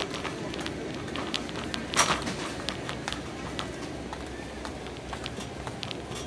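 Shopping cart rolling through a store: a steady rumble with the wire basket rattling and clicking, and a louder clatter about two seconds in.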